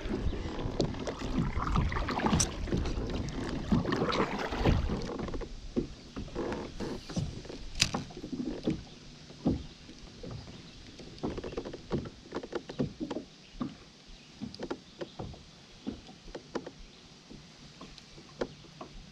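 Small fishing boat with water and handling noise for about the first five seconds, then scattered light knocks and clicks on the boat.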